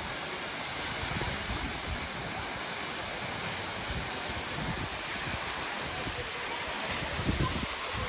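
A tall free-falling waterfall pouring steadily, an even rush of falling water.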